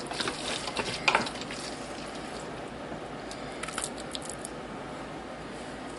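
Wooden spoon scooping a moist ground-meat and bean mixture out of a stainless steel pot and spreading it onto tortillas in a glass baking dish: soft squishy scrapes with light clicks, mostly in the first second and a half and again around four seconds in.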